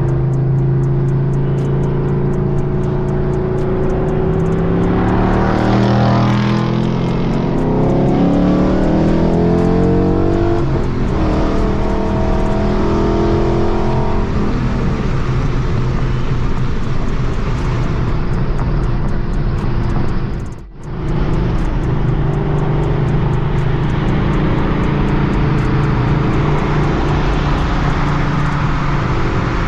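Ford Coyote 5.0 V8 running through its exhaust while driving, before new mufflers are fitted. About five seconds in it accelerates, the pitch rising over several seconds, then it settles into a steady cruise. The sound drops out briefly about two-thirds of the way through.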